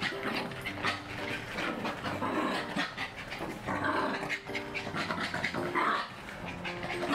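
Two small dogs playing rough: panting and scuffling, with many quick scrabbles and taps of claws on a floor play mat.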